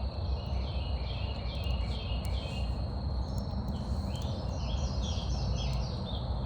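A songbird singing runs of short, quickly repeated falling notes, twice, over a steady high-pitched insect drone and a low rumbling background.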